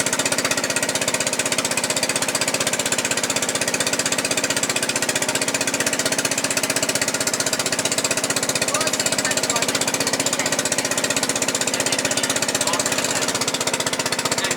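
An engine running steadily with a fast, even chugging.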